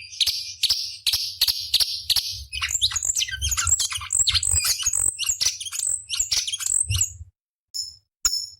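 Cucak cungkok (a leafbird) singing. It opens with a string of harsh, rasping notes, about three a second. Then comes a fast, varied chattering run of twitters and high whistles that breaks off near the end, leaving a few short single notes over a faint low hum.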